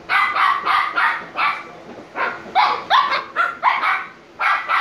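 Shiba Inu puppy barking in quick runs of short barks, about three a second, with brief pauses between the runs; some barks rise in pitch.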